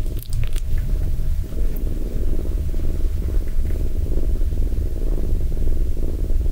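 A cat purring close to the microphone: a loud, steady, low rumble, with a faint steady hum under it.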